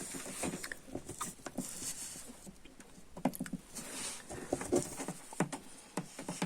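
Irregular small clicks, scrapes and rustles of hands handling a USB cable and its cut-open plastic plug housing.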